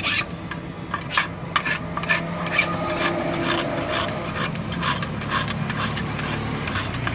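Hand file rasping across the steel blade of a kachi (sickle) in repeated strokes, about two a second, working its cutting edge.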